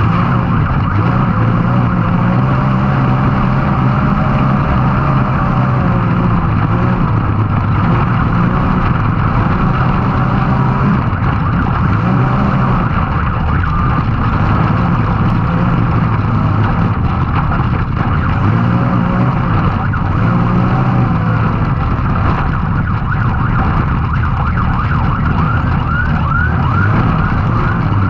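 A Can-Am Maverick X3's turbocharged three-cylinder engine being driven hard, its pitch rising and falling as the throttle is worked, with a high whine over the engine note. Near the end comes a quick run of short rising whistles, about two a second.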